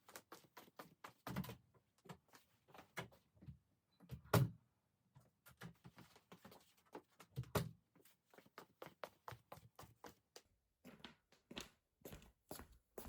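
Irregular knocks, clicks and thuds of objects being handled and set down, with a louder thump about four seconds in and another about seven and a half seconds in.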